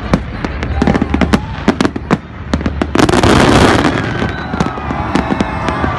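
Fireworks display: a rapid, uneven run of sharp bangs from shells bursting, with a loud dense crackling rush about halfway through.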